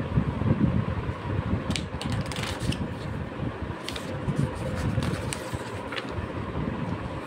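Paper pages of a book being turned and flicked, with a few sharp papery snaps, over a steady low rumbling noise.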